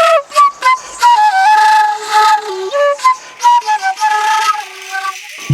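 Traditional Kamentsá ceremonial flute music: a flute plays a melody that moves in short steps between notes, with an audible breathy tone.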